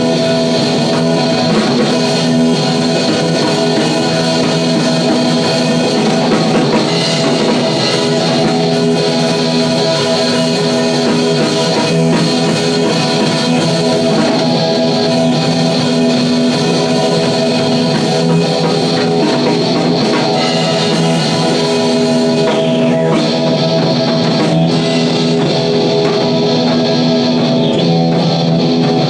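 Electric guitar played through an amp with drums: a loud, steady rock jam.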